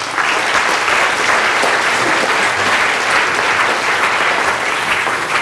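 Audience applauding steadily, a large lecture-hall crowd clapping at the end of a talk.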